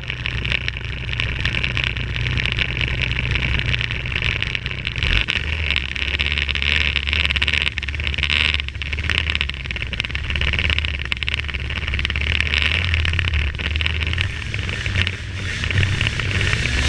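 Snowmobile engine running steadily while riding across open snow, with a constant high hiss over it; the engine note shifts about five seconds in.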